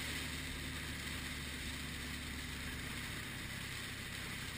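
Steady in-cabin drone of a moving vehicle: engine and road hum under a downpour drumming on the roof and glass.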